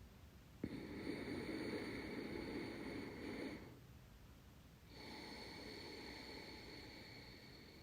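Ujjayi (ocean) breath: slow, deep breathing through a slightly constricted throat, making a hissing breath sound. One long breath of about three seconds starts just after the beginning; after a short pause a second, softer breath starts past the middle and continues.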